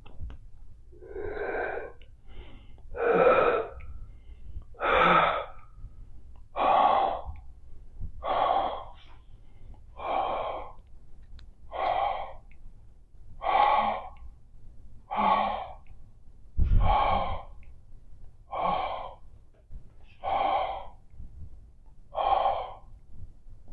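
A woman breathing heavily and rhythmically close to a clip-on microphone, about thirteen breaths each roughly half a second long and coming evenly every second and a half to two seconds, with a soft low bump about two-thirds of the way through.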